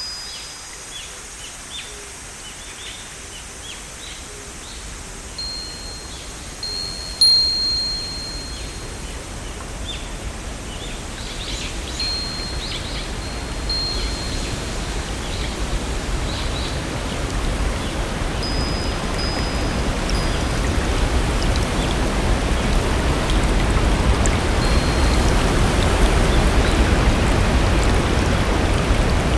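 Wind chimes give a few high, clear tones in the first half, then fade out. A steady hiss of rain swells under them and grows louder through the second half.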